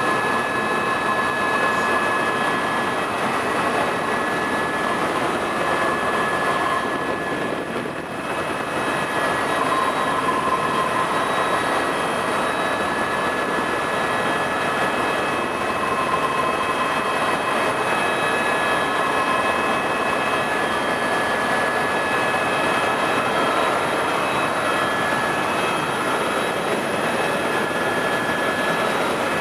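Eurocopter EC130 tour helicopter in flight, heard from inside the cabin: the turbine and rotors make a steady rushing noise with several high whines held over it. The sound dips briefly about eight seconds in.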